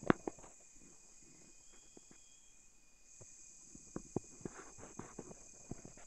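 Sharp close handling clicks and knocks, loudest right at the start, as a phone is fitted against a spotting scope's eyepiece, over a steady high-pitched insect drone from the rainforest.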